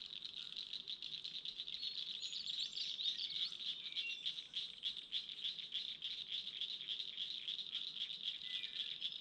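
Steady chorus of insects, a fast pulsing buzz, with a few short bird chirps about two to four seconds in.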